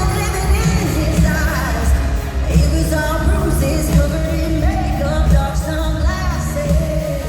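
A live country-pop song: a female lead vocal sings over a full band with heavy bass and drums.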